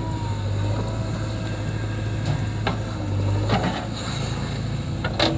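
Diesel engine of heavy machinery running steadily, with a few short, sharp knocks and clanks over it.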